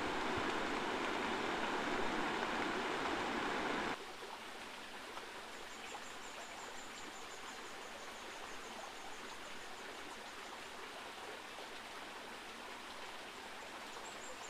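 Heavy rain, a dense steady hiss that cuts off abruptly about four seconds in. A quieter steady hiss follows, with a faint, high, rapidly pulsing trill for several seconds and again near the end.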